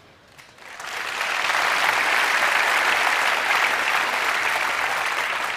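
A large theatre audience applauding. The clapping builds up about a second in, holds steady, and eases slightly toward the end.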